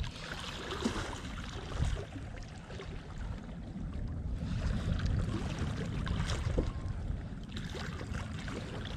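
Wind buffeting the microphone as an uneven low rumble over a steady wash of sea noise, with a few small knocks scattered through it.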